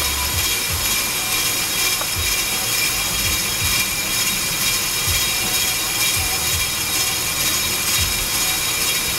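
On-car brake lathe running, spinning the brake rotor while its cutting bit resurfaces the face to take off the rust. A steady high whine over a running hum, with irregular low thumps.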